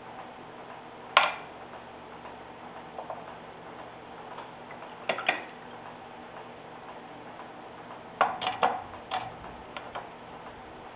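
A few light, sharp clicks and taps of a small acrylic paint bottle, its cap and a paintbrush knocking on a glass water jar and the tabletop while brown paint is set out and the brush is rinsed. The loudest click comes about a second in, with a quick cluster of taps about eight seconds in.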